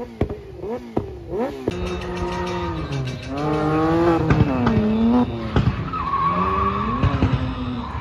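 A Kawasaki Ninja H2 motorcycle engine revved in quick, sharp blips, then from about two seconds in a drift car's engine held at high revs, its pitch rising and falling, with tyres squealing as the car slides.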